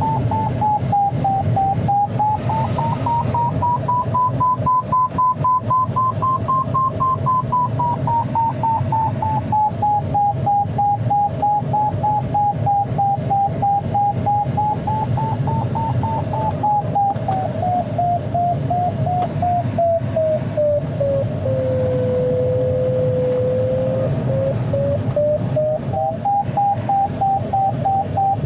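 Glider variometer's audio tone, a continuous electronic whistle that slowly rises and falls in pitch as the climb rate changes, dipping to its lowest about three quarters through. It sounds over a steady rush of air past the ASK 21's cockpit.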